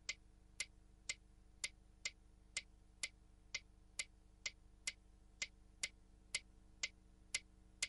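Pyramid metronome ticking steadily, about two faint ticks a second.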